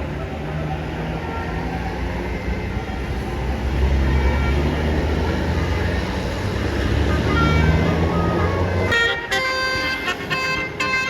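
A bus engine runs with a deep, low rumble. About nine seconds in, a basuri telolet melody air horn cuts in, playing a tune of clear notes that step up and down in pitch.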